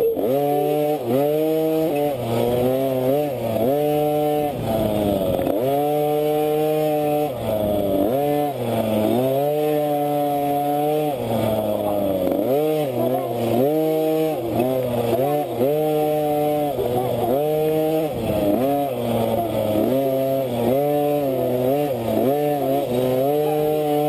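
KTM 50 two-stroke minibike engine under race riding, its pitch rising and falling over and over as the throttle is worked on and off, with short drops between bursts of revs.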